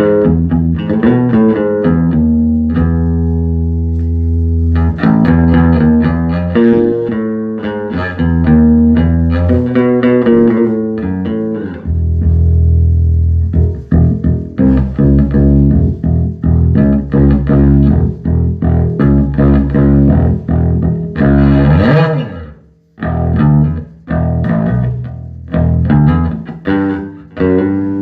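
Electric bass guitar played through a 1974 Ampeg B-15N Portaflex tube bass amp, freshly recapped. It plays runs of plucked notes with some held low notes, and there is a slide about three quarters of the way through.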